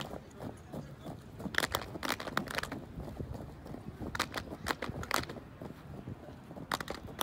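Unarmed drill team's hand claps and slaps, struck together in sharp groups of several beats about every two and a half seconds.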